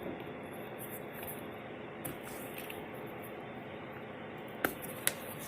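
Steady background hiss of a small room, with two short clicks close together near the end.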